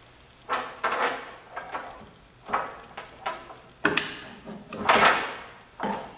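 A string of about seven knocks and scrapes of metal parts, some with a short ring, as the ignition body is worked loose and pulled off the engine of a 1954 Victoria Bergmeister V35 motorcycle; the loudest comes about five seconds in.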